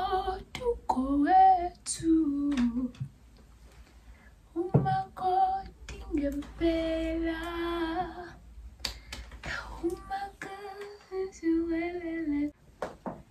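A woman singing unaccompanied in phrases with long held notes, breaking off for about a second and a half partway through. A few sharp clicks fall between the phrases.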